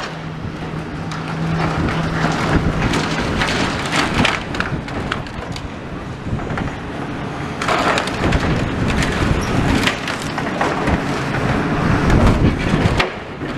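Demolition excavator with a crusher attachment at work: its engine hums for the first few seconds while rubble crunches and splinters, with louder bursts of breaking near the middle and near the end. Strong wind buffets the microphone throughout.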